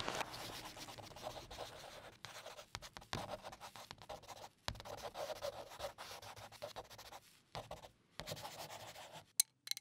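Faint scratchy crackling: irregular sharp clicks over a rough scraping noise, with a couple of brief breaks late on and a sharper click near the end.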